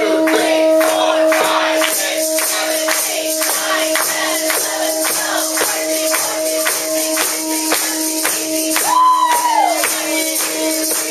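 Conch shell blown in one long, steady note held on a single breath, as in a longest-blow contest. A crowd claps a quick, even beat under it, and voices shout near the end.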